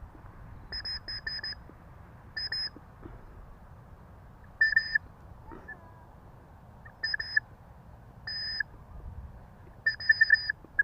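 White-breasted woodswallow calling: repeated short bursts of quick, high, beep-like notes, one to five notes per burst, every second or two.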